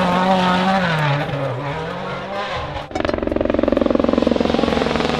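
Race-car engine sound effect. A steady engine note dips in pitch, then about three seconds in it cuts abruptly to a faster, rattling engine note that slowly falls.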